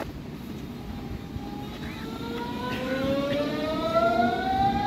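Berlin S-Bahn class 481 electric train's traction inverters whining as it pulls away. Several tones rise together in pitch from about a second in, over a low rumble, getting louder.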